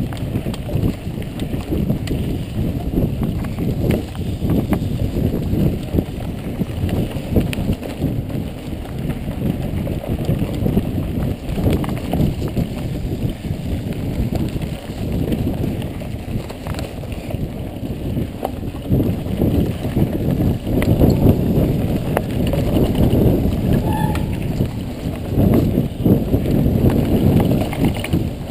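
Mountain bike ridden fast along a dirt trail: a constant rumble of tyres on the ground with frequent knocks and rattles as it goes over bumps.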